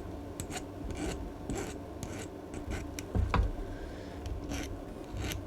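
Hand file scraping in short, irregular strokes across the edge of a tin-plated copper bus bar, taking off a burr, with a dull knock about three seconds in.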